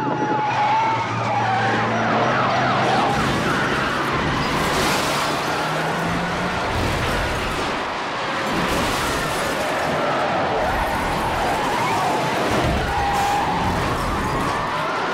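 Police sirens wailing over a din of car noise, the siren tones wavering up and down.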